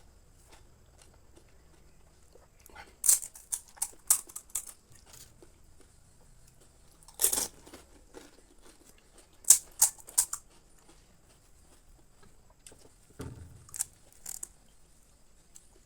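Crisp pani puri shells crunching as they are bitten and chewed, in short clusters of crunches every few seconds with quiet between.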